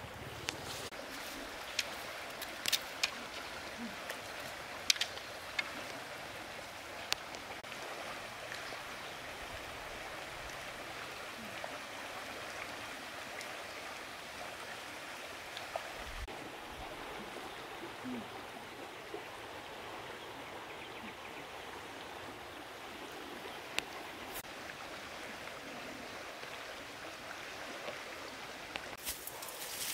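River water flowing steadily over a shallow riffle, a constant even rush. A few short sharp clicks stand out now and then, the strongest about five seconds in.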